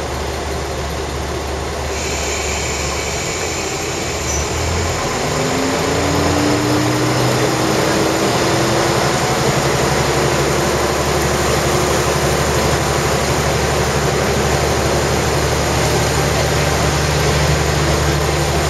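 Diesel railcar's engine and running gear heard from inside the carriage as the train climbs the grade. The engine note changes about five seconds in, rising slowly in pitch and getting a little louder, then holds steady.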